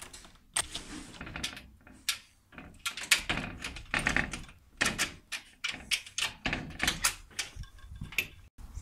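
A front door and a metal security screen door being opened: an irregular run of latch clicks, handle rattles and knocks.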